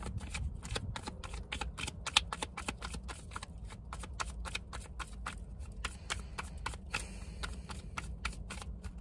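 Tarot cards being shuffled by hand: a dense, uneven run of quick card clicks and flicks.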